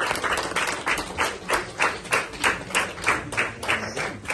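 A group of people clapping together in a steady rhythm, about three claps a second, ragged at first and then falling into time.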